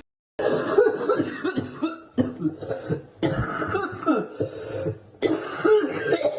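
A person coughing with a wet, phlegmy cough, the sign of mucus in the airways. The coughing comes in four bouts of several coughs each, starting about half a second in.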